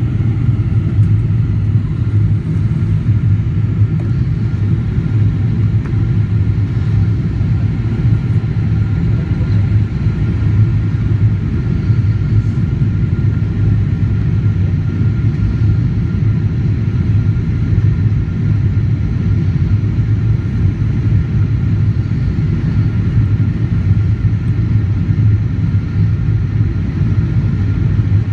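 Cabin noise of a Boeing 777-300ER on descent: its GE90 engines and the airflow give a steady low drone, with faint steady whining tones above it.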